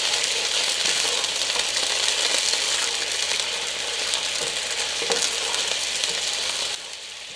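Water just added to a hot oil-and-sugar caramel sizzling and bubbling hard in a nonstick pan as a wooden spatula stirs it; the sizzle starts suddenly and drops off sharply near the end.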